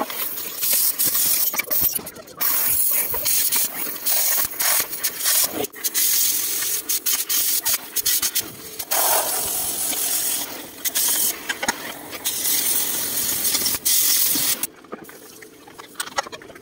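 Oxy-fuel cutting torch hissing as it cuts through steel chassis plate. The hiss breaks off and comes back many times, and stops near the end.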